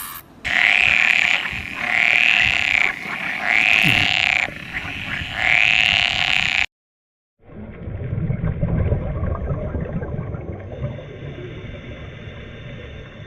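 An animal calling four times, each call about a second long and rising then falling in pitch. After an abrupt cut, a different, lower and rougher animal sound runs on steadily.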